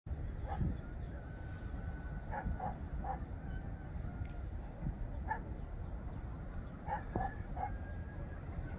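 Distant hunting hound (barak) barking in short irregular groups, about eight barks, while giving tongue on a hare's trail.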